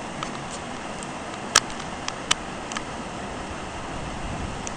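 Steady rushing of a brook's waterfall over rock ledges, with a few short sharp clicks, the loudest about one and a half seconds in.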